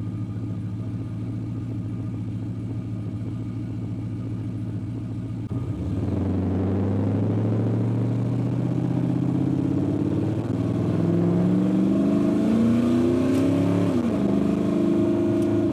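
Cammed 5.3 L LS V8 in a Ford Ranger, heard from inside the cab through its side-exit exhaust. It runs steadily at first. About five and a half seconds in it gets louder as the truck accelerates, the engine note rising in pitch twice. It dips briefly near the end, then holds a steady cruising note.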